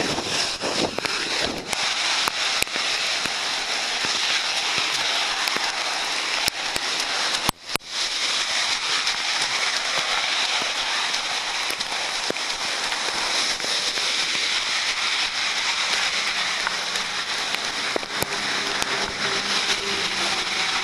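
Heavy rain pelting close to the microphone: a dense, steady crackle of drops with sharp ticks from single drops striking near it. The sound drops out briefly about seven and a half seconds in.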